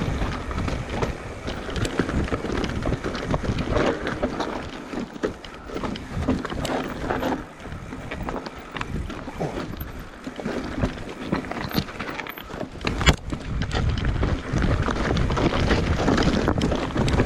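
Wind rushing over the action-camera microphone while a Commencal Meta Trail 29 mountain bike clatters over a rocky trail, tyres rolling on stone, with frequent knocks and rattles. There is one sharp knock about three-quarters of the way through.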